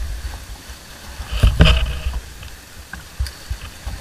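Choppy seawater slapping and sloshing against a kayak's hull, in uneven surges, with one louder slap about a second and a half in.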